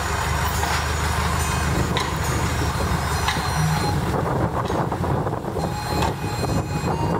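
Long-tail boat engine running steadily under way: a loud, continuous low drone with a rushing hiss over it.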